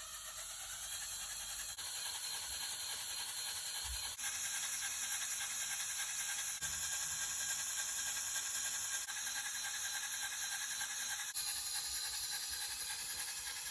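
LEGO Technic six-cylinder radial engine model running on a test bench, its plastic pistons, connecting rods and gears giving a fast, steady whirring rattle that builds over the first couple of seconds and then holds.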